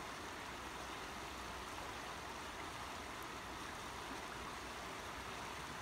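Shallow rocky stream flowing over stones: a steady, even wash of water.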